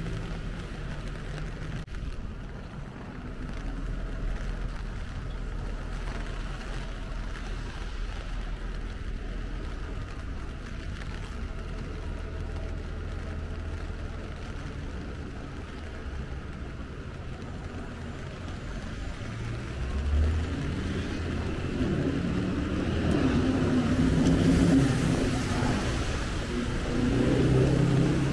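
City street traffic: a steady low rumble of vehicles. From about twenty seconds in, a nearby vehicle engine grows louder and swells twice near the end as vehicles pass close.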